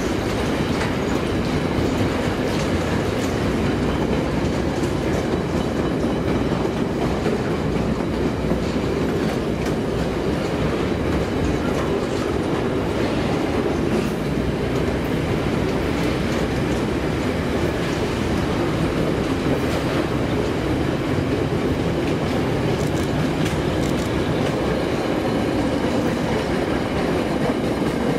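Freight train wagons rolling steadily past on the rails: a continuous rumble of steel wheels on track, with occasional clicks.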